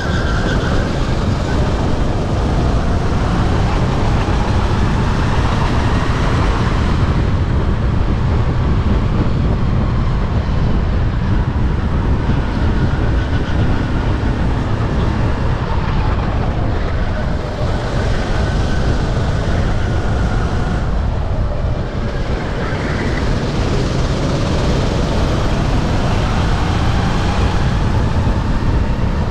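Sodi RT8 rental kart's engine running at race pace, its pitch rising and falling every few seconds as it accelerates out of corners and lifts for the next, over a heavy low rumble.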